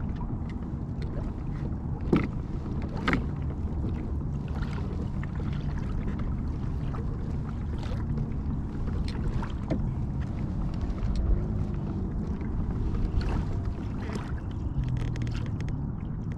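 Pedal-drive kayak under way as it is pedalled, with a steady low drone of the drive and water along the hull. A few sharp knocks stand out, the loudest about two and three seconds in.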